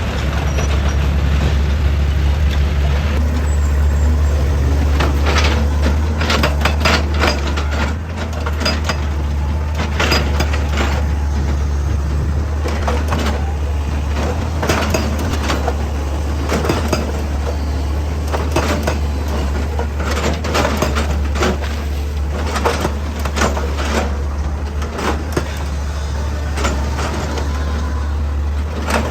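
Excavator's diesel engine running steadily under load, with many sharp clanks and knocks over it.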